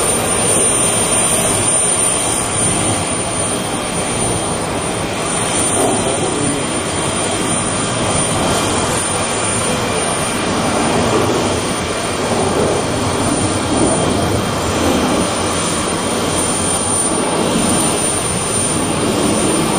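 Tupolev Tu-154B-2's three NK-8-2U turbofan engines running, steady jet noise with a thin high whine and small swells in level.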